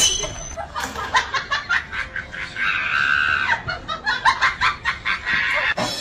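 A person laughing in quick, high-pitched bursts, with one longer held note about halfway through.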